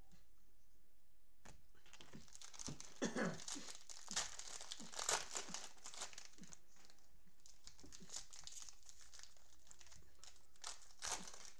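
Clear plastic cellophane wrapper of a 2020 Prizm football cello pack crinkling as it is torn open and pulled off the cards. The crinkling starts about a second and a half in, is busiest for the next few seconds, then thins out, with one more short burst near the end.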